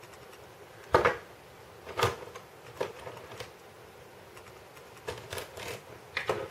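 Hard plastic LEGO Technic parts of a hand-built Rubik's Cube clacking and clicking as its layers are twisted, with a few sharp clacks spaced about a second apart and a quicker cluster near the end. The turns are catching and jamming where the parts snag in the holes of the thick Technic beams.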